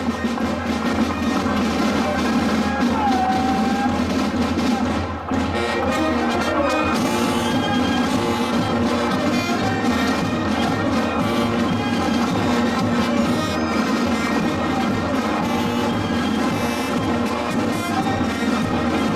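Brass band playing carnival music, with a brief dip in level about five seconds in.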